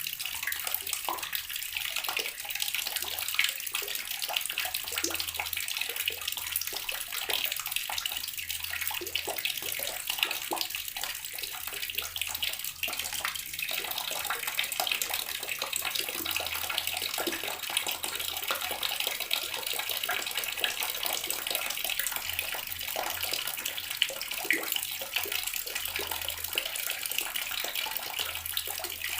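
Water running steadily from a tap and splashing into the water below, a continuous hiss of small splashes.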